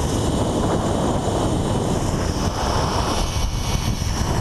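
Rushing wind buffeting an action camera's microphone during a fast zipline ride. Under it runs a steady whir of the trolley pulley on the steel cable.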